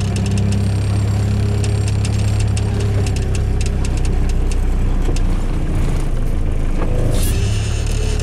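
Mitsubishi Triton MJ ute's engine running with a steady low drone, heard from inside the cab as the truck moves slowly, with light scattered rattling ticks. The owner still feels vibration from the truck's driveline mount, which he blames on the transfer-case mount not sitting right.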